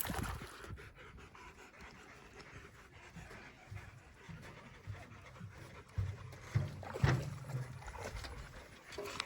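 A dog panting, a run of quick breaths, with a few louder huffs between about six and seven and a half seconds in.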